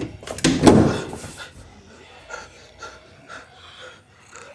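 A person voicing a zombie for a sound effect: a loud growling groan about half a second in that lasts about a second, followed by quieter breathy sounds and small clicks.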